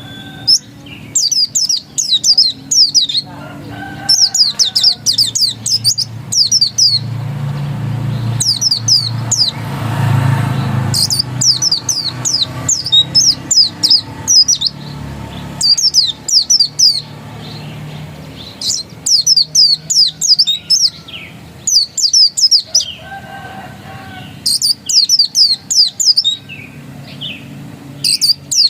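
White-eye (pleci dakun) singing its insistent 'ngotot' song: phrases of rapid, high twittering notes, each a second or two long, repeated again and again with short pauses between. A low rumble sits underneath and grows louder for a few seconds in the middle.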